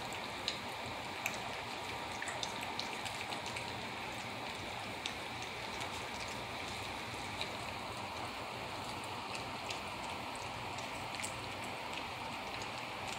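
Miniature dachshund puppies eating dry kibble from a stainless steel bowl: many small irregular crunches and clinks of pieces against the metal over a steady hiss.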